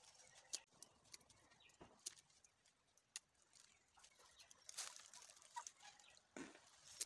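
Faint rustling of coffee-shrub leaves and twigs, with scattered small clicks and snaps at irregular moments, as dried coffee cherries are picked off the branches by hand.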